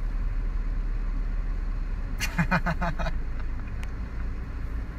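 Steady low rumble inside a car cabin, with a short burst of a man's laughter, four or five quick pulses, about two seconds in.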